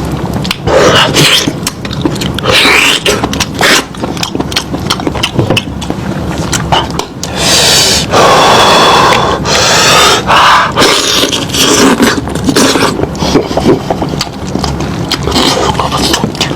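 Close-miked chewing and eating: wet mouth smacks, clicks and crackles as meat is chewed, with a few brief hummed or voiced mouth sounds.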